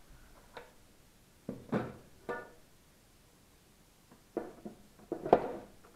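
Metal air filter housing on a Mercedes 190E's engine being handled by hand: a few irregular knocks and clanks, one with a short metallic ring, the loudest near the end.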